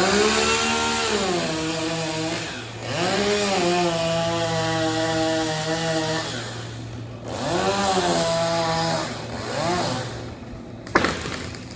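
Chainsaw cutting through a tree limb: the engine revs up and holds in three long bursts and a short fourth, its pitch rising and then settling lower while it cuts, before dropping back. A single sharp crack near the end.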